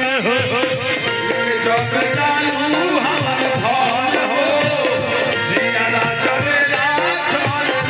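Bhojpuri stage-show music: a wavering melody line over steady, shaker-like percussion.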